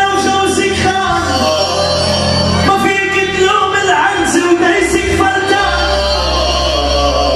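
Loud live Arabic pop music through a club sound system: a male singer over a heavy, steady bass line, with the bass note changing about a third of the way in and again past the middle.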